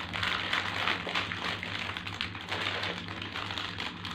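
Plastic snack packet being handled and crinkled, a dense run of small irregular clicks and crackles, over a steady low hum.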